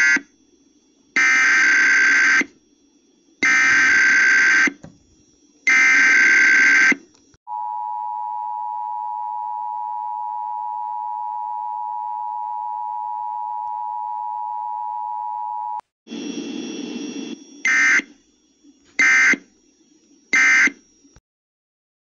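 Emergency Alert System (EAS) relay of a required weekly test: three bursts of warbling SAME header data tones about two seconds apart, then the steady two-tone attention signal for about eight seconds. After a brief noisy burst come three short end-of-message data bursts.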